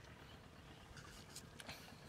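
Near silence: a faint low outdoor rumble, with a few soft short clicks in the second half.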